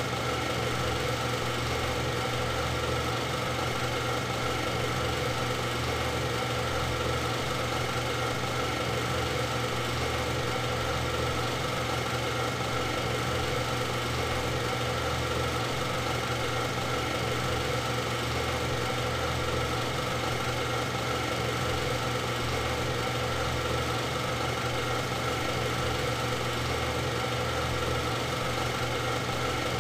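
Steady mechanical whirr of a Super 8 film projector running, with a constant low hum and a few fixed higher tones that never change in pitch or level.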